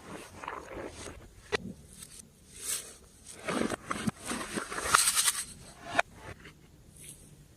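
Slime being squished and worked by hand: irregular wet squishing bursts with a few sharp clicks or pops.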